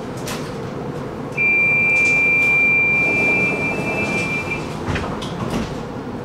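Tram door-closing warning beep: a steady high two-note electronic tone held for about three seconds. About five seconds in comes a knock as the doors shut, over the tram's steady low hum.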